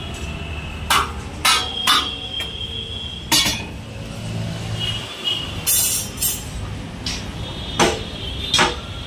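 Irregular sharp knocks and clinks, about eight of them, over a steady low hum.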